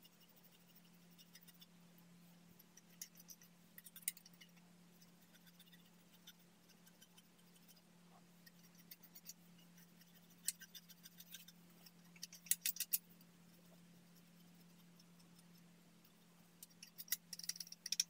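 Clear slime being stretched, folded and squeezed by hand, giving faint sticky clicks and crackles. They come in clusters about a fifth of the way in, again around two-thirds of the way through, and loudest near the end, over a faint steady hum.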